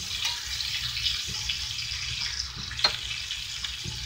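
Meat pieces sizzling steadily in a cast-iron skillet, with a spatula clicking against the pan a few times, most sharply about three seconds in.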